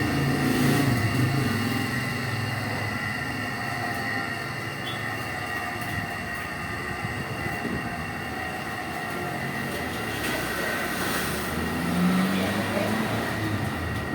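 Three-phase electric motor of about 2 horsepower running steadily with a constant whine.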